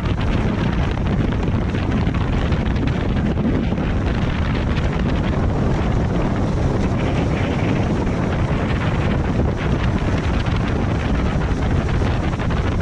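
Wind buffeting the microphone on a small skiff running at speed, over the steady noise of a small outboard motor and the hull on the water.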